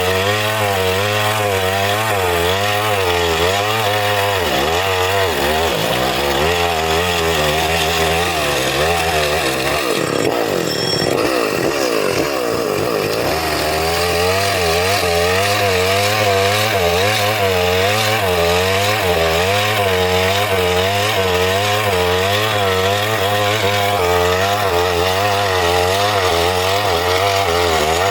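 Chainsaw running at speed through wood, its engine pitch wavering steadily as the chain bites. About ten seconds in, the pitch swings up and down for a few seconds as the load changes, then settles back into the cut.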